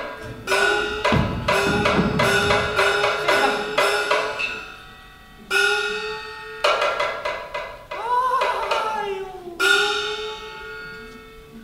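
Kunqu opera percussion ensemble playing: a run of ringing gong strokes with sharp clapper knocks, about two strokes a second, then a few heavier strokes whose ringing bends in pitch.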